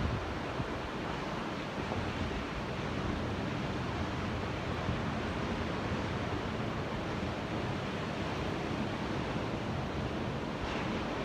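Ocean waves and surf, a steady wash of water noise.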